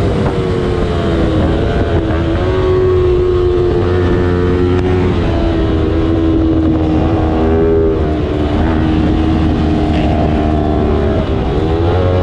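Small-displacement racing motorcycle engine running hard, its pitch climbing and dropping back again and again as it goes through the gears. A quick up-and-down sweep of revs comes near the end, over a steady low rumble.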